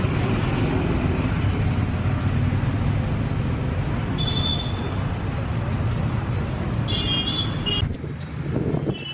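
Steady low rumble of background noise, with short high-pitched sounds about four seconds in and again near the end; the rumble drops away shortly before the end.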